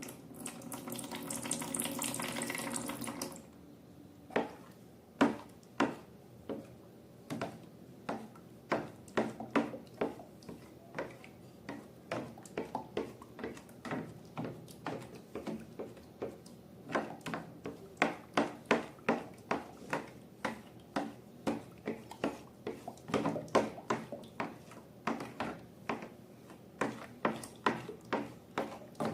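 Liquid poured into a container for about three seconds, then a long run of short, sharp clicks and taps, about two a second, as the mixture is worked.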